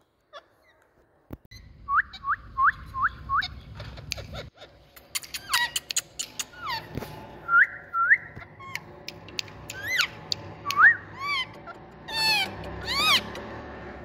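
Indian ringneck parakeets calling: a quick run of five short rising whistles about two seconds in, then scattered whistles and sharp clicks, and near the end several harsher calls that drop in pitch.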